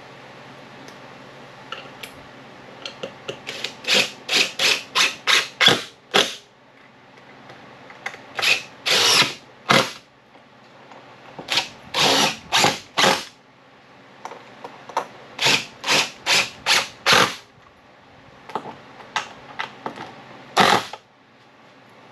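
Cordless power driver driving screws into pine boards, in short trigger-pulsed bursts. The bursts come in about five runs of several each, with short pauses between runs.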